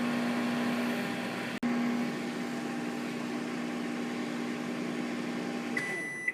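Microwave oven running with a steady hum while reheating snow crabs. Near the end the hum stops and a short high beep sounds.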